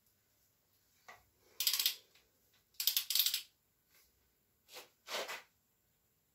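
Hand tools clattering on a bare engine block as the connecting-rod cap bolts are undone: a torque wrench and socket worked and set down. About five short rattling clanks, the loudest about two and three seconds in.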